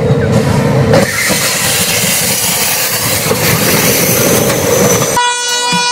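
Diesel locomotive running up to a car on a level crossing and, about a second in, striking it: a sudden crash that gives way to a steady rushing, scraping noise with scattered knocks as the car is shoved along. Near the end a locomotive horn sounds one steady note.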